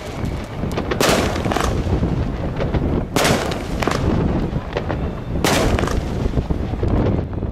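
Fireworks cake (a 42-shot 'Rock' cake) firing aerial shells that burst overhead: three loud bangs about two seconds apart, each with a short tail, over steady low background noise.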